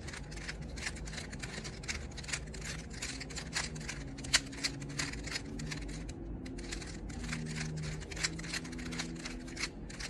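A loose, well-lubricated 3x3 Rubik's cube being turned quickly by hand: a rapid run of light plastic clicks as its layers snap round, broken by a short pause a little past halfway.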